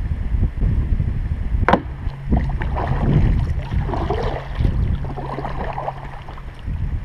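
Water sloshing around a sit-on-top kayak's hull, with wind rumbling on the microphone. A sharp click comes just under two seconds in, and a steady low hum runs through the middle.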